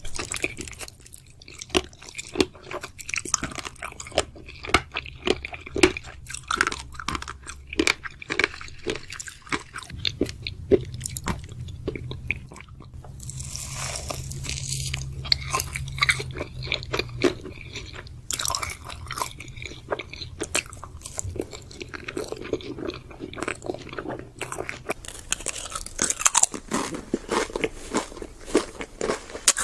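Close-up eating sounds: a person chewing and biting into crunchy food, with many quick, irregular crunches. The crunching eases off for a few seconds about halfway through, then picks up again.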